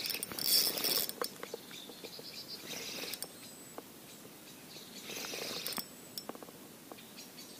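Quiet outdoor ambience with faint bird chirps, scattered small clicks and a few soft rustles.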